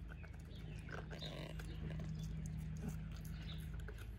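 Norwich terrier gnawing a pork shoulder bone: scattered short clicks and scrapes of teeth working on the bone. A steady low hum runs underneath, strongest from about a second in until near the end.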